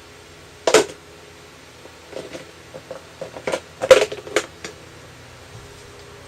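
Tools and metal parts being handled in a small room: one sharp knock about a second in, then a run of short clicks and clinks, the loudest near the middle, over a steady low hum.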